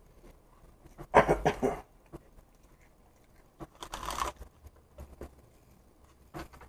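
A crunching, crinkling burst about a second in and a second, quieter one around four seconds in, with a few light clicks and knocks, as a hand handles a plastic cottage cheese tub on the table.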